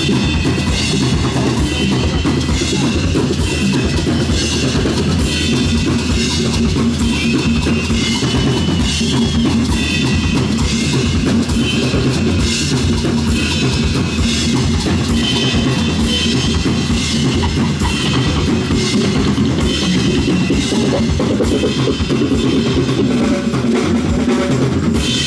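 Live rock band playing loudly over PA speakers: electric guitars over a driving drum kit with bass drum and cymbals.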